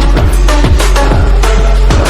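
Electronic backing music with a heavy bass line and a steady beat of deep drum hits.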